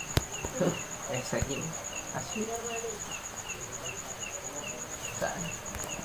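Insects calling steadily: a fast, high, pulsing trill with a shorter chirp repeating about two to three times a second. A sharp click comes just after the start.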